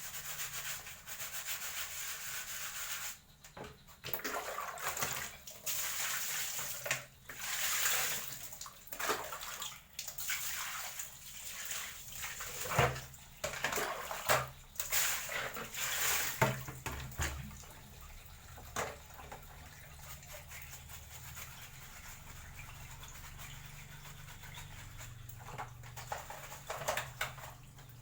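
A dirty TV circuit board being washed: water hissing in short bursts that stop and start every second or two. After about 18 seconds the hissing dies down to a low steady hum.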